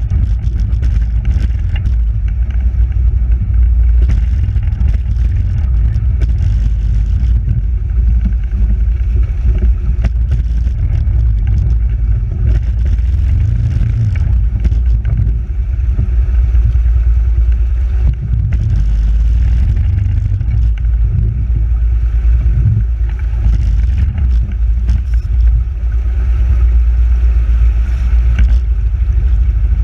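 Fast river water churning and splashing around an ATV being swept along by the current: a loud, steady rumble with scattered knocks.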